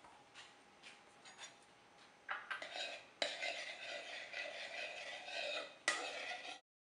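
A spoon scraping and stirring a mashed garlic-and-salt mixture in a mixing bowl. A few faint clicks come first, then a steady scraping starts about two seconds in and cuts off abruptly near the end.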